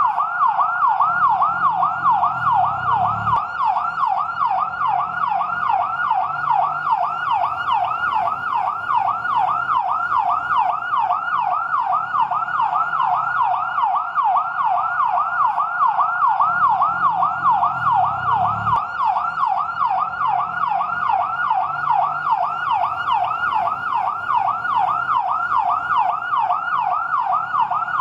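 Fire truck siren on yelp: a rapid, steady rising-and-falling wail, about three sweeps a second. A low rumble swells up briefly twice beneath it.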